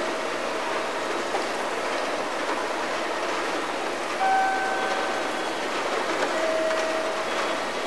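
Railway station platform background noise: a steady rushing din, with a couple of short faint tones, one about four seconds in and one near the end.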